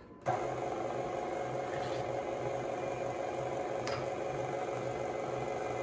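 Electric stand mixer switched on about a third of a second in, its motor and beater running steadily through cake batter with a fast, even low pulse. A couple of faint clicks come partway through.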